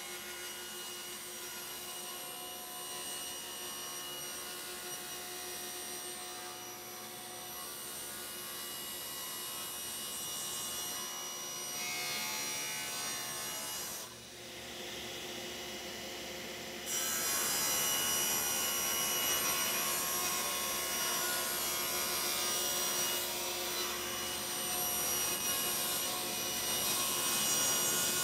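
Table saw running and ripping plywood into strips, the blade cutting through the sheet as it is fed. The sound changes a little past the middle and is louder from then on.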